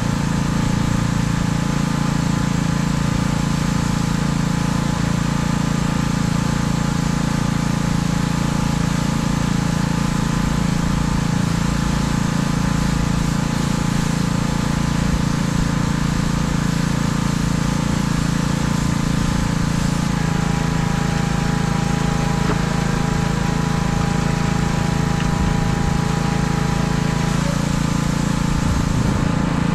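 Pressure-washer engine running steadily, with the hiss of the high-pressure spray on the truck cab. The engine's tone shifts slightly about two-thirds of the way in.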